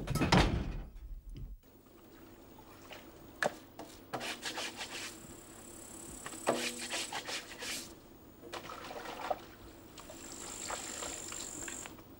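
Laundry being scrubbed by hand in a tub of water: irregular rubbing and scraping of wet cloth with trickling water. A short louder noise comes right at the start, and a thin high whistle sounds twice, about six and ten seconds in.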